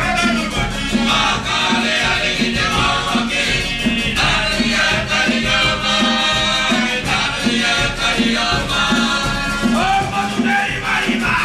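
Live Cook Islands string band: ukuleles and guitars strumming a steady beat, about two strokes a second, with group singing over it.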